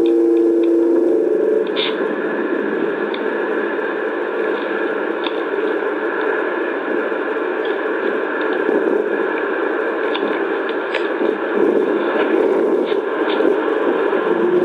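A steady low drone cuts off about a second and a half in, giving way to a steady hiss like radio static, dotted with faint clicks.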